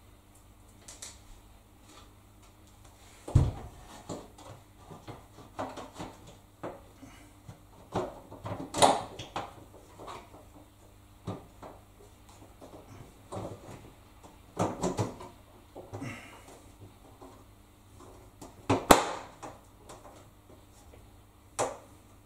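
Irregular knocks, clicks and clunks as the door and door seal of a Bush front-loading washing machine are handled, with a heavy thump about three seconds in and a sharp knock near the end.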